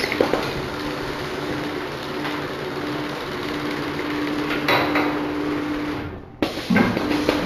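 Coffee stirrer stick bundling machine running, a steady hum from its mechanism with intermittent clicks and knocks as it works. The sound briefly drops out a little after six seconds in.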